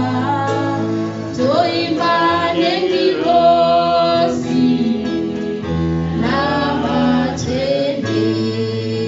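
A woman singing a gospel song into a microphone, holding long notes and sliding between them, over sustained backing chords that change every few seconds.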